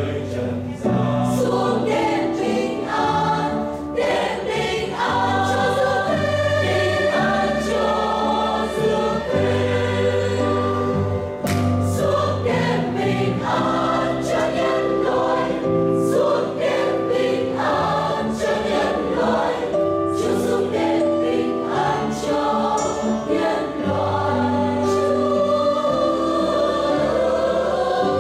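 Choir singing a Christmas piece together, over long held low notes that change every second or two.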